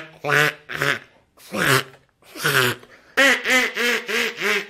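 A person laughing: several separate voiced bursts, then a quick run of about five short 'ha' sounds near the end.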